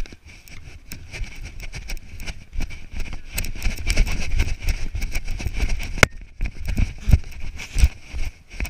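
Wind buffeting and clothing rustle on a body-worn action camera's microphone as the wearer runs on grass, with footfalls and knocks throughout and a sharp click about six seconds in.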